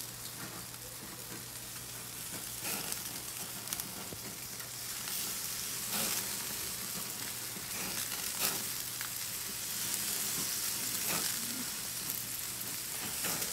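Sausages and shrimp skewers sizzling over an open gas grill, with a few sharp crackles as fat drips from the sausages and flares up in the flames.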